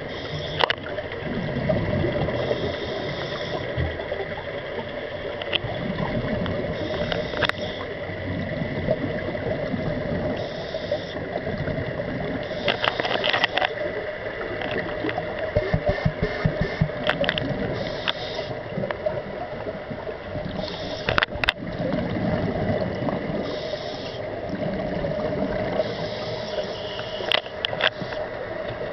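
Scuba regulator breathing underwater: a hiss on each inhalation alternating with bubbling exhalations, in a slow regular cycle every few seconds, over a steady hum, with scattered sharp clicks.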